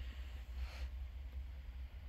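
Quiet room tone: a low steady hum, with one faint short hiss just after half a second in.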